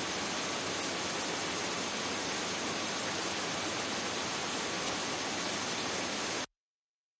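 Steady hiss from a police helicopter's onboard audio feed, with a faint high whine running through it, cutting off abruptly to silence about six and a half seconds in.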